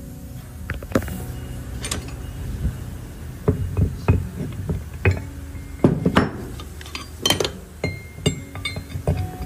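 Irregular metal clinks and sharp knocks, some of them ringing briefly: hand tools working on car brake parts. Background music plays underneath.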